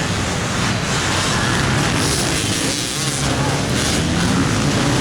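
Several dirt bike engines running steadily at the start line of an off-road motorcycle race.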